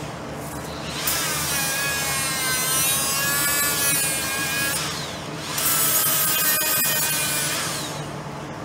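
Cordless die grinder grinding mild steel: a high whine that wavers in pitch as it bites, in two runs with a short break about five seconds in.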